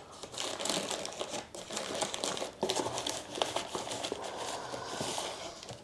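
Packing wrap crinkling and rustling as a hand rummages inside a cardboard camera box, with many small clicks and crackles throughout.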